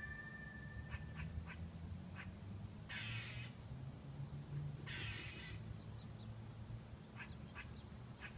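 Squirrel giving harsh, raspy calls, each about half a second long, twice about two seconds apart, with short sharp clicks between them.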